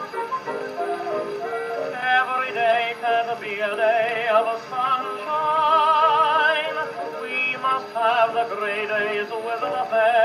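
Edison Diamond Disc phonograph playing an early acoustic recording through its horn: a thin-sounding band accompaniment without bass, then a singer with a wide vibrato comes in about two seconds in.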